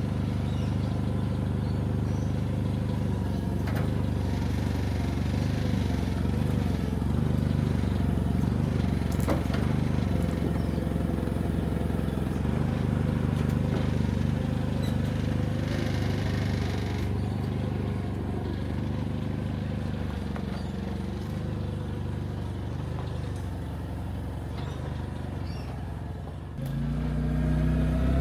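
Forklift engine running steadily while it works, its note shifting a little. About a second and a half before the end it dips, then comes back louder with a rising, revving pitch.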